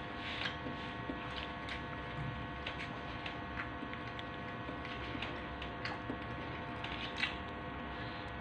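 A white plastic spoon scraping and tapping in a paper soup bowl, with small scattered clicks, over a steady electrical hum.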